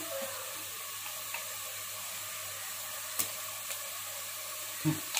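Sliced onions and green chillies sizzling steadily in hot oil in a steel pot, with turmeric and ginger-garlic paste just added. A faint click about three seconds in and a short knock near the end.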